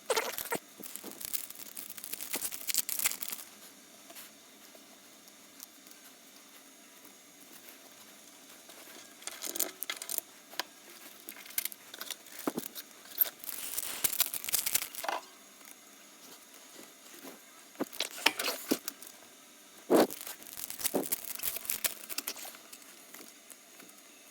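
Trading-card pack wrappers crinkling and tearing as packs are opened and cards handled. The sound comes in several rustling stretches with quiet gaps between them.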